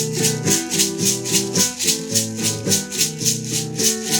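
Maracas shaken in a steady son rhythm, about four strokes a second, over chords on a plucked string instrument.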